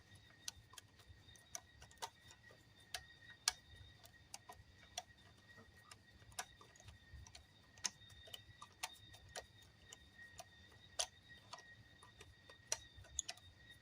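Faint, irregular light clicks and ticks of 3D-printed plastic parts being handled and turned as a leg piece is screwed onto the foot, with a faint steady high-pitched tone in the background.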